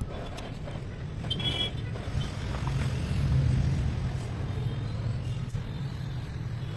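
Royal Enfield Diesel Bullet's single-cylinder diesel engine running after its rebuild, a steady low rumble that grows louder about three seconds in and then eases.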